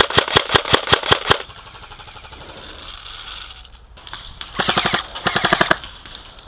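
Airsoft gun firing in fully automatic bursts, about nine shots a second. A long burst stops just over a second in, and two shorter bursts follow close together near the end.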